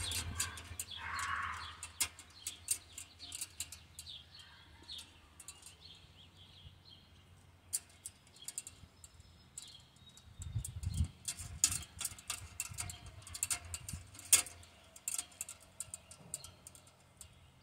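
Sheet-metal parts of a small box-shaped camping stove clicking and clinking as they are fitted together by hand, in scattered irregular taps with a few dull bumps, while birds chirp in the background.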